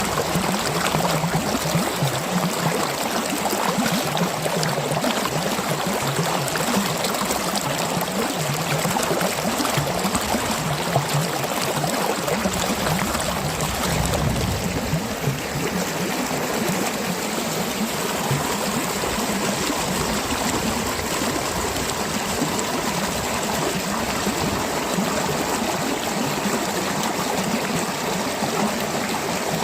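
Stream water flowing and gurgling steadily.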